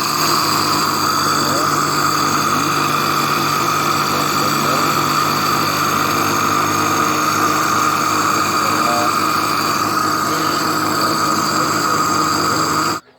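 Electric kitchen blender motor running steadily at full speed, grinding dried turmeric, ginger and temulawak pulp into powder. It switches off abruptly near the end.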